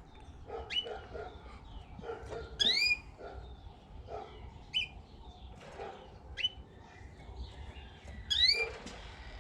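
Caged pet birds chirping: short, sharply rising calls, the loudest about two and a half seconds in and again near the end.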